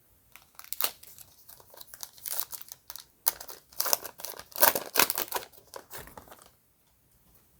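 Trading card pack wrapper being torn open and crinkled by hand, a dense crackle for about six seconds that stops near the end.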